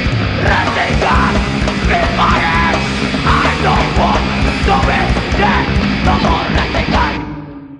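A hardcore punk band playing live through a PA, with distorted guitars, bass, drums and shouted vocals. The song ends abruptly about seven seconds in and rings out briefly.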